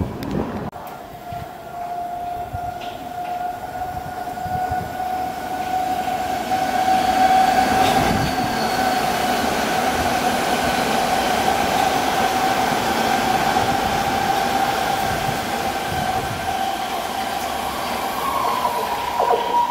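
London Underground S-stock train running through the station on the non-stopping tracks, passing close at speed. It makes a steady rumble with a steady high two-note whine. The noise builds over the first several seconds, stays loud while the cars go by, and fades near the end.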